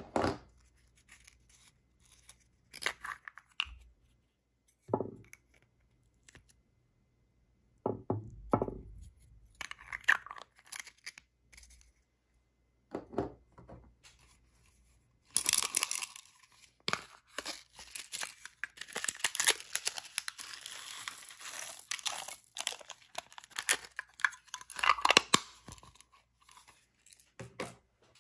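Items being set into a glass baking dish of clear slime: scattered taps, knocks and rustles, then several seconds of dense crackling and rustling in the middle, with a few more short clicks near the end. Among the things going in are a ball of pink clay and a heap of small water beads.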